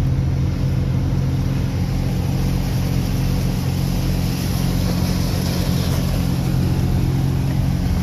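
An engine running steadily at a constant speed, a low, even hum with no change in pitch.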